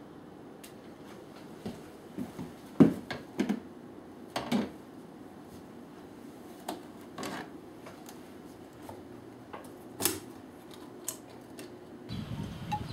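Scattered clinks and knocks of a gas can and a mug being handled and set down on a kitchen counter, over a low steady hum. The loudest knocks come about three seconds in and again about ten seconds in.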